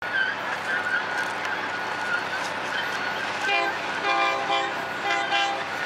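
Air horn of an approaching Florida East Coast Railway diesel freight locomotive, heard from a distance, sounding several short blasts starting a little past halfway.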